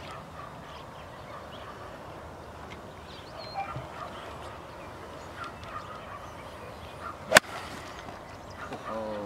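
A golf club striking a ball once: a single sharp crack about seven seconds in.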